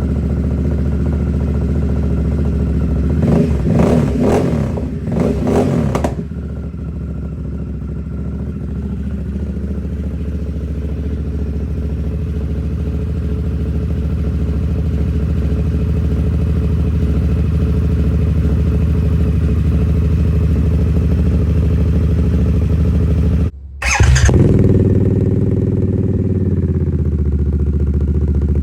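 A 2022 Harley-Davidson Nightster's V-twin engine idles steadily and is blipped a few times about three to six seconds in. Near the end, after a brief break in the sound, it is revved hard once and falls back to idle.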